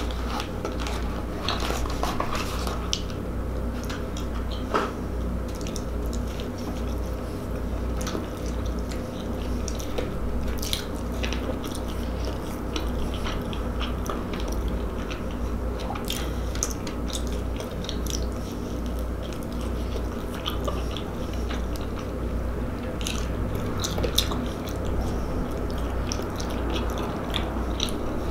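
Close-miked chewing of a White Castle slider: wet mouth clicks and smacks scattered throughout, over a steady low hum.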